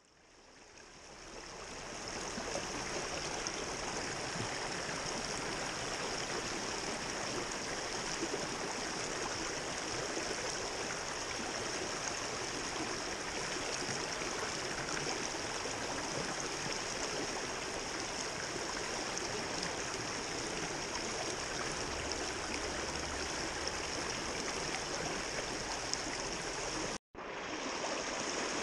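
Water of a shallow, rocky stream rushing over rocks in a riffle: a steady rushing that fades in over the first couple of seconds. It cuts out for an instant near the end.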